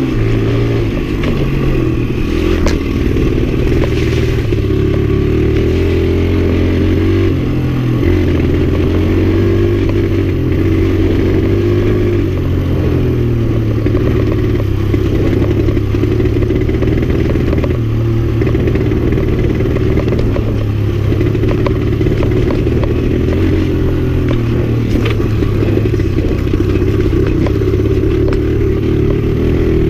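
1984 Suzuki DR100's small single-cylinder four-stroke engine running under way, its note rising and falling every few seconds as the throttle opens and closes. A few sharp knocks and rattles from the bike come through early.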